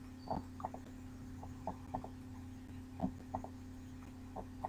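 Faint, irregular clicks of a computer mouse, about a dozen short clicks over a steady low electrical hum.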